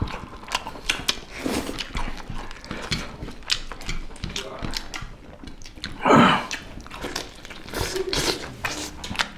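Close-miked eating sounds: chewing, biting and wet mouth smacks as chicken leg meat and rice are eaten by hand, with a brief louder voiced sound about six seconds in.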